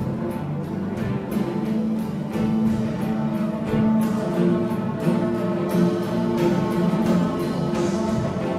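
Live instrumental music, improvised in character: sustained pitched tones held and shifting slowly, with light clicking percussion scattered through.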